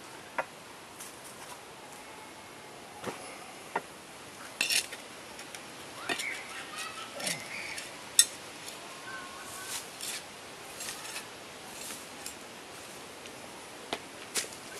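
Small hand trowel digging and scraping in soil beside a concrete kerb stone: irregular scrapes and short sharp knocks, the loudest about eight seconds in.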